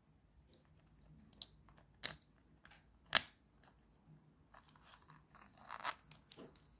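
Handling noise from a disassembled action camera's plastic parts and circuit board, held and turned in the fingers: a few sharp clicks, the loudest about three seconds in, then a short rustling crunch near the end.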